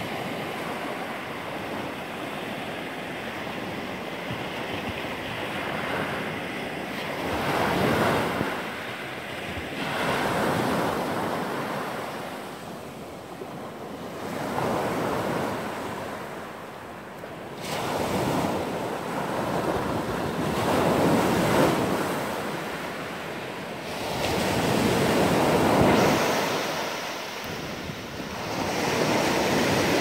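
Sea surf breaking on a pebble beach: a steady rush of water that swells and fades with each wave, one surge every few seconds.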